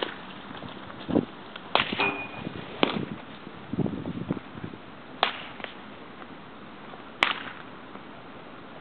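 Baseball bat hitting soft-tossed balls, four sharp cracks one to two seconds apart, with a few duller knocks in between.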